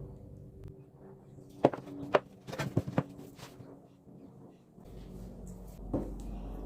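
A quick series of sharp knocks and clatters, about six in a second and a half, then one more a few seconds later: handling noise from pieces or tools being set down in a woodworking shop.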